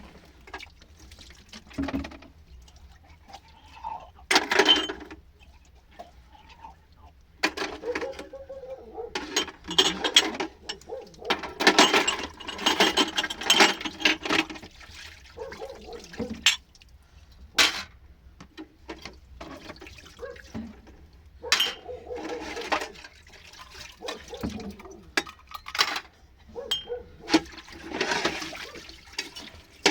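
Water being poured and splashed in irregular bursts, with a few sharp knocks.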